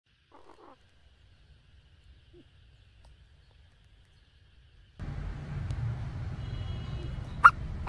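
Faint background rumble that gets louder about five seconds in, with a few short soft chirps near the start and one sharp bird note shortly before the end.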